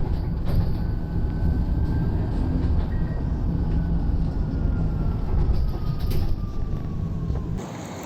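A vehicle running with a loud low rumble and a faint whine that slowly falls in pitch, cutting off near the end.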